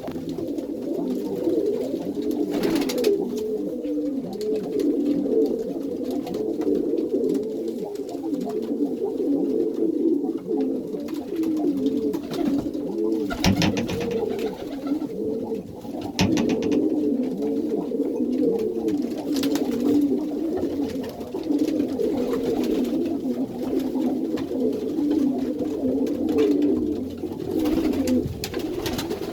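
A flock of Iranian domestic pigeons cooing together in a loft, many overlapping coos forming a continuous low chorus. A few short, sharp noises stand out among them, the loudest about halfway through.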